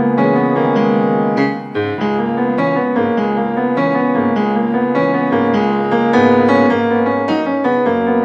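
Background music: a gentle piano piece played on a keyboard, with a steady flow of overlapping notes.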